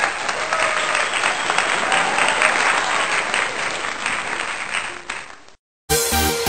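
Crowd applauding, a dense patter of many hands clapping that fades out about five seconds in. After a short silence, electronic intro music with a steady beat starts near the end.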